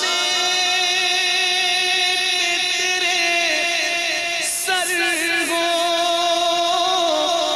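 A male voice singing an Urdu naat, drawing out long, ornamented notes that glide between pitches, with no clear words.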